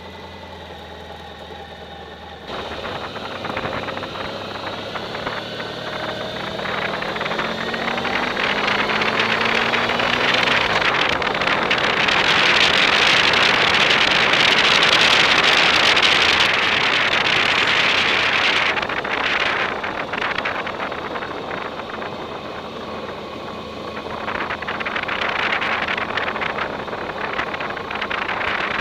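Motorcycle engine idling, then pulling away about two and a half seconds in, its pitch climbing as it accelerates. A loud rush of wind on the microphone builds at speed, eases off after the middle and picks up again near the end.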